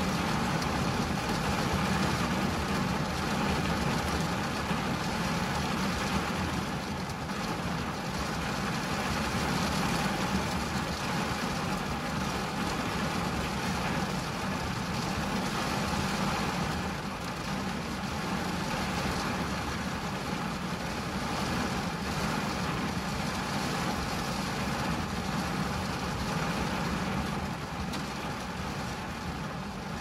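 Steady rain falling on a car's windscreen and body, heard from inside the cabin as an even hiss with a low, steady hum underneath. The rain swells and eases slightly now and then.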